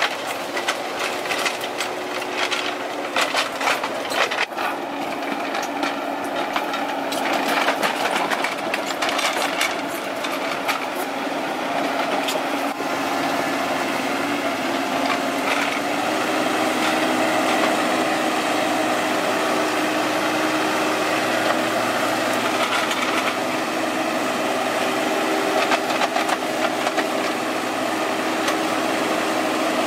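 Kubota KX91-3 mini excavator's diesel engine running, with a clatter of knocks and clanks through the first dozen seconds or so. About halfway through the engine note rises a little and holds steady.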